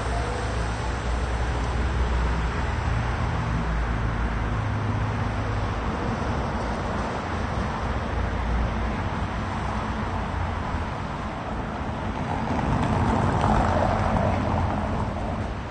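Urban street ambience with steady traffic noise and a low rumble in the first few seconds. The noise swells for a couple of seconds near the end.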